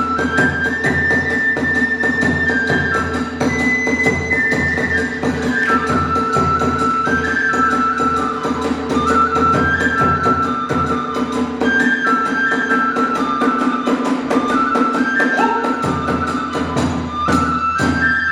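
Kagura hayashi ensemble: a bamboo transverse flute (fue) plays a stepping, repeating melody over fast, continuous drumming and clashing hand cymbals.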